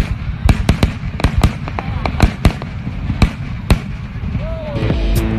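Aerial firework shells bursting in a display: a dozen or so sharp bangs at irregular intervals, with a short gliding tone near the end. Music with steady notes comes in during the last half second.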